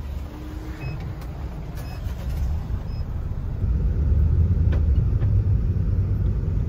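Taxi driving, heard from inside the cabin: a steady low rumble of engine and road noise that grows louder a little over halfway through as it gathers speed.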